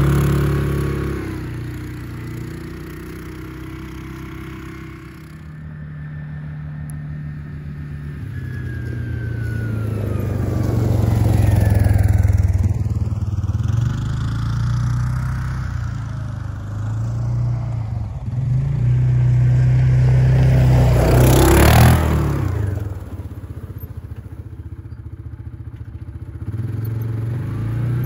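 Side-by-side UTV engine running while driving, its note rising and falling with the throttle. Two swells of rushing noise come about halfway through and again about three-quarters of the way through.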